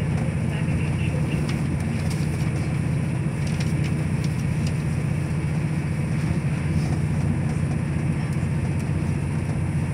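Steady low rumble and hum of a passenger train running along the line, heard from inside the carriage, with a few faint clicks.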